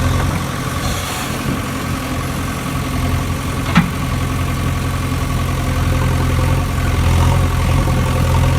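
A vehicle engine idling steadily, with a single sharp click about four seconds in.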